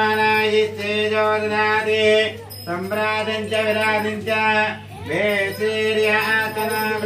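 Devotional singing for a puja: one voice sings an aarti-style melody in long, slightly wavering held notes over a steady drone, pausing briefly between phrases.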